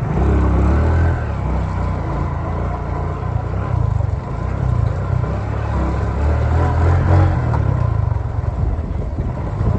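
Motor vehicles running past on a road, a continuous low rumble that swells twice, near the start and again around six to seven seconds in.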